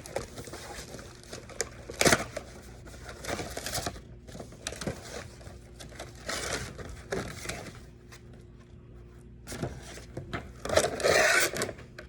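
Toy packaging being handled and opened: irregular crinkling, scraping and rustling of plastic and cardboard, with a sharp click about two seconds in and a louder burst of rustling near the end.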